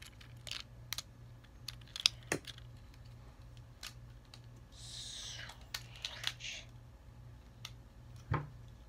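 Sharp plastic clicks of a Transformers action figure's joints and parts being worked by hand while it is transformed, scattered irregularly, with a short scraping rustle about five seconds in and a dull thump near the end.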